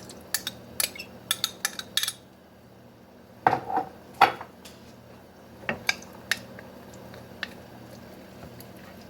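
A spoon stirring tomato paste into water, clinking against the container: quick clinks for about two seconds, then a pause, then a few louder knocks and scattered taps.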